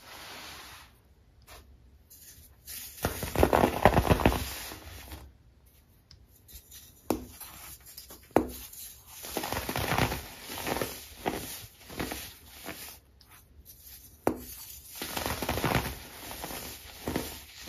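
Dyed, moulded baking soda blocks crushed and crumbled by hand into powder: gritty crunching and crackling in bursts, loudest about three to four seconds in, with a few single sharp snaps as a block breaks.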